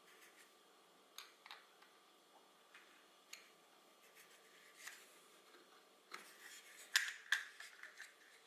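Faint scattered light clicks and taps of small brass parts being handled, with a quick run of sharper clicks about seven seconds in.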